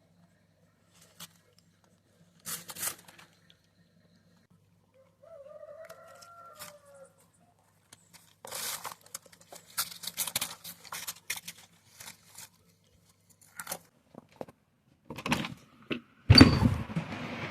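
A chicken call about a second and a half long among scattered scratching and rustling, then near the end a loud thump followed by a steady rushing noise.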